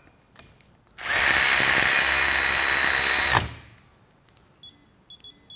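Milwaukee M12 FUEL digital torque wrench's motorised ratchet running for about two and a half seconds as it runs a bolt down, then cutting off sharply. Near the end the wrench starts giving short high beeps, coming faster, as the bolt is tightened by hand toward the set torque.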